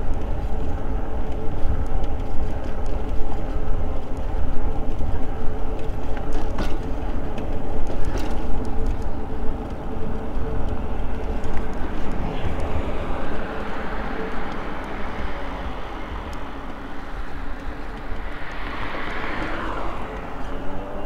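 Electric bike riding on a paved trail: a steady motor whine over low tyre and wind rumble. A few sharp clanks come from the rear rack knocking against the metal basket. In the second half a broad rushing noise swells and then fades.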